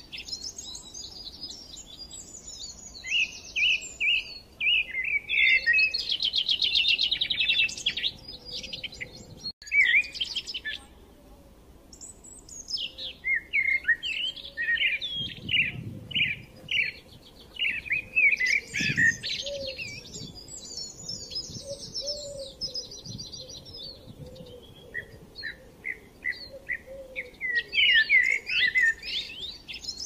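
Rainbow lorikeets chattering: bouts of shrill, rapid screeches and buzzy trills, with a short lull about ten seconds in.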